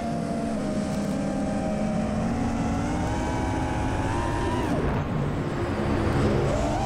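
An FPV racing quadcopter's brushless motors whine, their pitch following the throttle, over a low rushing noise. The pitch climbs slowly to about four seconds in, drops sharply near five seconds, then rises again near the end.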